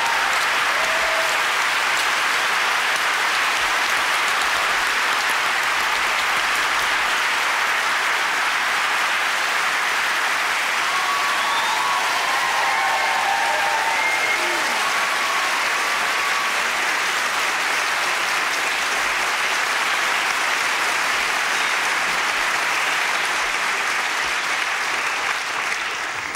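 Television studio audience applauding steadily, the applause fading near the end.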